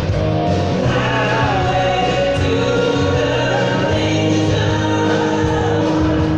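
Music with a singer, playing steadily and loud.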